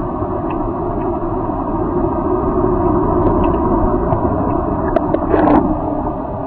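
Hammer-Head commercial pool vacuum running steadily, a low, even motor-and-suction noise, with a few brief clicks about five seconds in.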